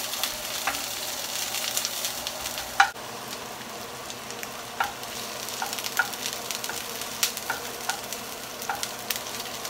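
Diced red onions sizzling in olive oil in a frying pan as a wooden spoon stirs them, with scattered taps of the spoon on the pan. One sharp knock comes about three seconds in, after which the sizzle is a little quieter.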